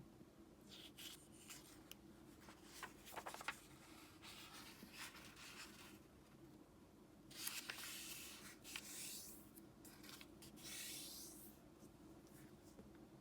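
Origami paper being folded and its creases pressed down by fingers: soft rustles and rubbing strokes, the longest about seven and ten seconds in.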